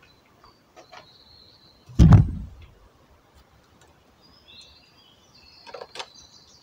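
Small birds chirping in the background. About two seconds in there is a single heavy thump with a short low rumble after it, the loudest sound here, and a smaller, sharper knock comes near the end.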